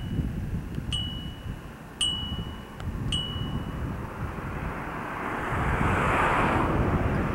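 Yellow-bellied marmot giving four short, high whistles about a second apart. Wind buffets the microphone, growing louder in the second half.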